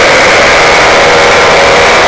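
Paramotor engine and propeller running steadily in flight, loud and close to the microphone, with a steady high tone over a dense rushing noise.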